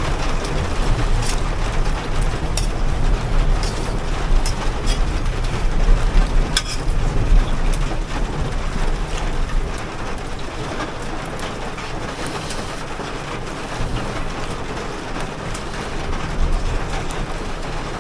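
Steady rain falling on and around an armoured vehicle, heard through its open door, with scattered sharp drip ticks. A strong low rumble under the rain eases about ten seconds in.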